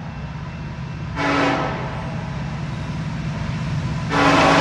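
Horn of an approaching CN diesel freight locomotive: a short blast about a second in, then a long blast starting near the end, over a steady low rumble. The short-then-long pattern is the close of the standard grade-crossing horn signal.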